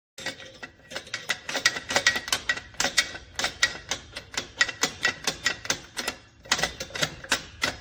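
Rapid, irregular clicking and clacking, several sharp clicks a second, starting abruptly.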